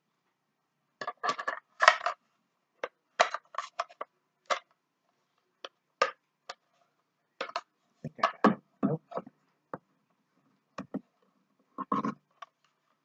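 Hard plastic pieces of a unicorn-shaped taco holder clicking, tapping and knocking together in irregular short knocks as the head is fitted onto the body.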